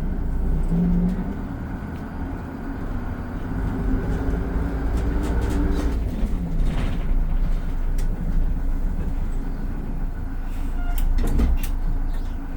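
GM New Look bus's diesel engine running, its pitch rising and falling, with a falling tone about six seconds in and a few sharp clicks and knocks near the end.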